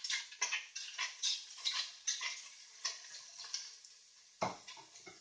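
A utensil scrapes and pushes chopped meat around the bottom of a hot stainless-steel Zepter pot while the meat sizzles. The meat is cooking with no oil or water. The strokes come irregularly, several a second, then thin out, with one louder knock against the pot near the end.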